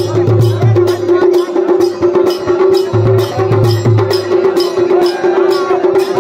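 Traditional drums beaten in a fast, even rhythm of about five strokes a second, with a steady held tone sounding under them.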